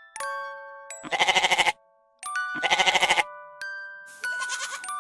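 Two bleats from sheep or goats, each about two-thirds of a second long with a fast quavering tremble, the second a second and a half after the first. They sound over light glockenspiel-like background music of single struck, ringing notes.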